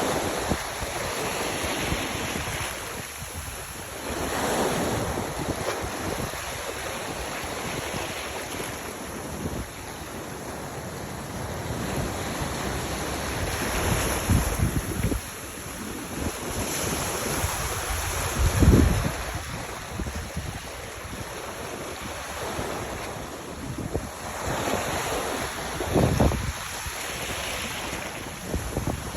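Sea waves washing in, swelling every few seconds, with wind buffeting the microphone in a few heavy low gusts.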